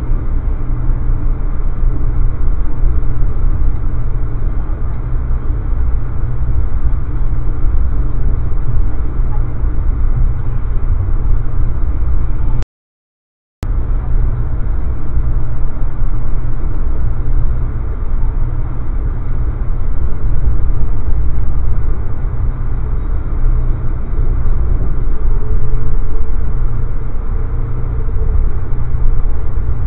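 Steady low rumble of an Amtrak passenger train rolling at speed, heard from inside the coach. The sound cuts out completely for about a second near the middle.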